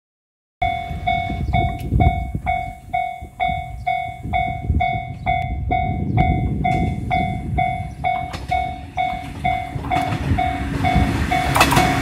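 Japanese level-crossing warning bell ringing steadily about twice a second, over an uneven low rumble. Over the last second or so the running noise of a JR 105-series electric train grows louder as it nears the crossing.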